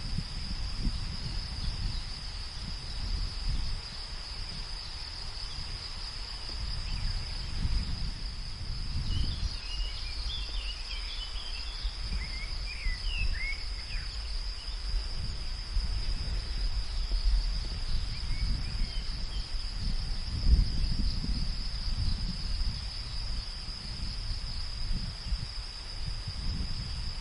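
Field ambience: insects trilling in one steady high-pitched drone, over a low rumble that swells and fades. A few brief high chirps come near the middle.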